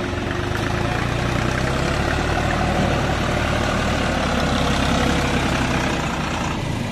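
Deutz-Fahr Agrolux 50 4WD tractor's diesel engine running steadily as the tractor drives through a muddy paddy field, growing slightly louder in the middle.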